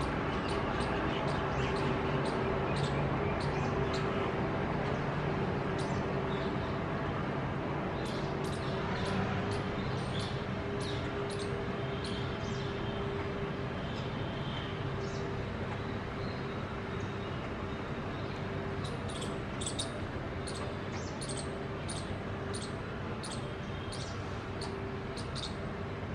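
Steady background hum and rumble with runs of rapid, short, sharp high-pitched chips from the palm squirrels and jungle babblers feeding on grain. The chips come in two runs, one about a third of the way in and a denser one from about two-thirds on.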